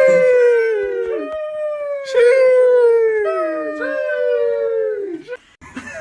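A dog howling: a string of long, drawn-out howls, each sliding down in pitch, that stops about five seconds in.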